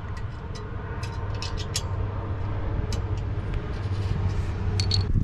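K24 four-cylinder engine of an Acura RSX idling steadily through an HKS Hi-Power exhaust, a low even hum, with scattered light clicks and taps over it.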